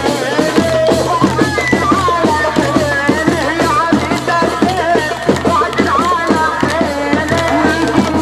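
Arabic wedding zaffa music: a wavering, ornamented melody over fast, steady hand-drum beats and a low sustained bass.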